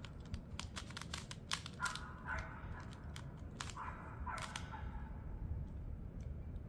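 Monster Go magnetic Pyraminx being turned by hand: a run of quick, light clicks as the layers snap into their magnetic positions, dense for the first few seconds and sparser near the end.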